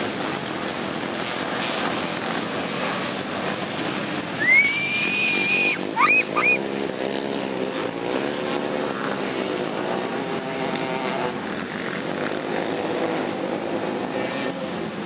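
A field of racing three-wheeler engines running and revving together, with several engines rising and falling in pitch through the middle. About four and a half seconds in comes a loud held whistle, then two short rising whistles a second later.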